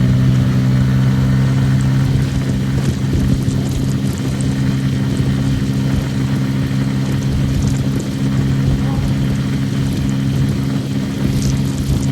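Motorcycle engine running at a steady, even speed while riding, with a haze of road and wind noise.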